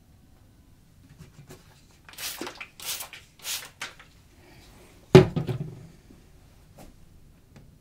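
Handling noises: four short scratchy rustles in quick succession, then a single sharp knock about five seconds in, the loudest sound, followed by a faint click.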